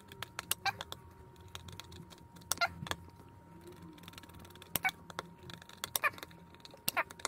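Torque screwdriver with a T20 bit tightening the screws of a steel scope mount's rings to 1 newton metre, one after another: a run of small clicks and ticks, with a few sharper clicks every second or two.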